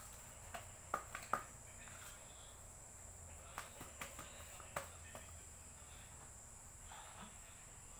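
A hand mashing and mixing boiled potato with chopped onion in a steel plate: scattered light clicks and taps, bunched in the first five seconds, over a steady high-pitched drone.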